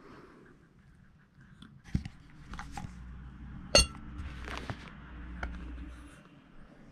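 Knocks and handling noise, then a sharp, ringing clink a little before four seconds in as a plastic microwave dome cover is set down over a ceramic plate.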